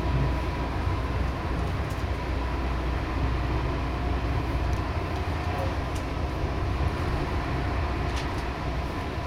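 Train running at speed on board a BR 218 diesel-hauled train of double-deck coaches: a steady rolling rumble of wheels on the track, with a few faint clicks.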